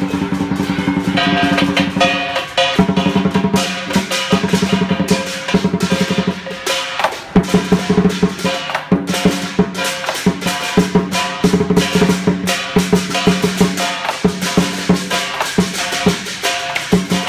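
Lion dance percussion: a large barrel drum beaten in fast rolls, with hand cymbals and a gong clashing along. The rolls break off in short pauses a few times and start again.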